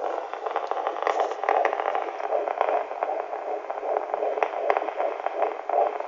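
Fetal Doppler monitor's speaker giving a rushing hiss and crackle with scattered clicks, with no clear heartbeat in it yet.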